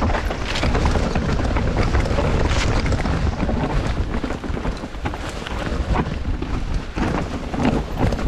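Mountain bike being ridden downhill on a trail: steady wind buffeting the microphone over tyre noise, with constant small clicks and knocks as the bike rattles over bumps.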